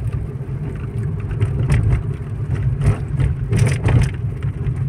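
Steady low rumble of a car on the move, heard from inside, with a few short knocks about two to four seconds in.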